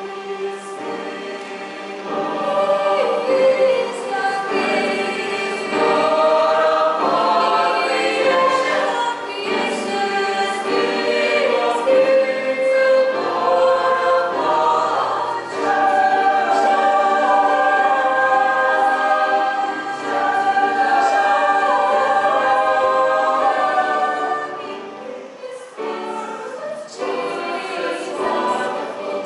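A choir singing a hymn, several voices holding sustained notes in harmony, with a short break between phrases near the end.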